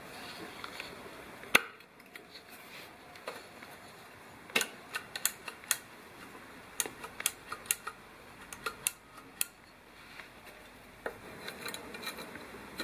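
Sharp metal-on-metal clicks and taps as a turbocharger's cartridge is handled against its cast turbine housing, irregular and scattered throughout, the loudest about one and a half seconds in.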